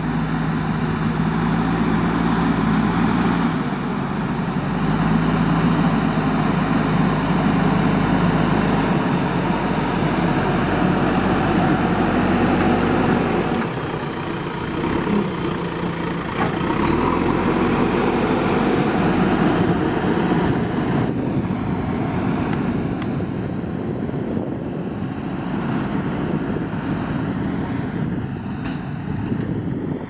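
JCB 3DX backhoe loader's four-cylinder diesel engine running under load as the front bucket pushes and levels soil. The note is steady but changes abruptly in pitch and loudness a few times.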